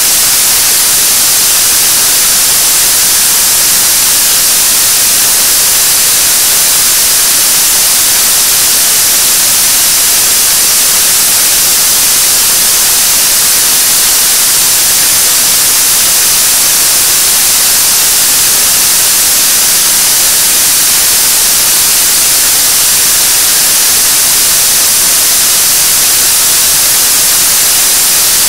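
Kerosene and liquid-oxygen 7-ton-class liquid rocket engine, the Nuri launcher's third-stage engine, in a steady burn on its test stand: a loud, even hiss that does not change.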